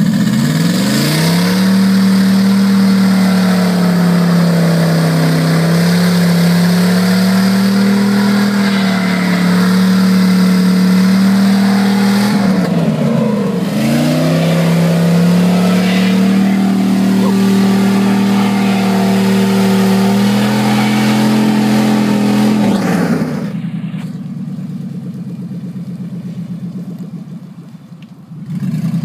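Dodge Dakota pickup's engine revved hard and held at high revs for about twenty seconds as the stuck truck tries to drive out of deep mud, the pitch wavering and dipping sharply once about halfway before climbing again. A few seconds before the end the revs fall away and it goes much quieter.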